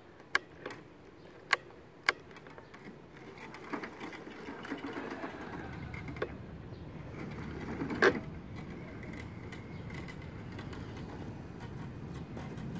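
Electric drive motors of a radio-controlled lawnmower whirring steadily as it drives on swivel casters. The whir builds from about three seconds in. A few sharp clicks come in the first two seconds and one more about eight seconds in.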